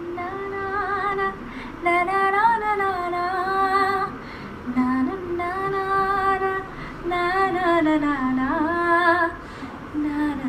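A woman singing a slow melody unaccompanied, in phrases of about two seconds with wavering, ornamented notes.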